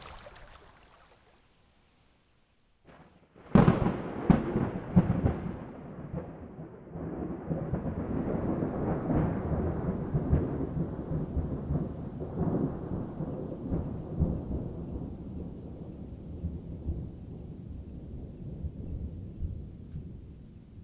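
Thunder. After a brief near-silent gap, a sudden sharp thunderclap breaks about three and a half seconds in, with several more cracks over the next two seconds. A long rolling rumble follows and slowly fades.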